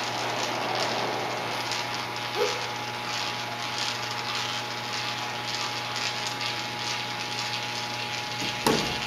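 A coin rolling round and round the sloped funnel of a spiral coin well, giving a continuous fine rattling whir, with one brief louder knock near the end.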